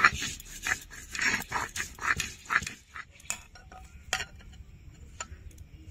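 Short, repeated high animal cries for about the first half, then a few sharp clicks and knocks of kitchen utensils.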